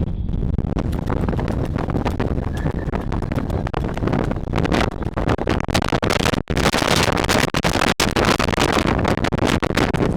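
Strong bise wind gusting hard against the microphone, a loud rumbling rush that grows stronger and hissier in the second half, with the sound cutting out for an instant twice.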